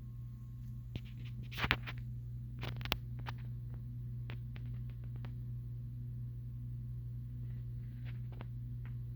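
SMC DC52 two-blade ceiling fan running with a steady low motor hum and a faint, even pulsing. A few short clicks come over it, the loudest about one and a half and three seconds in.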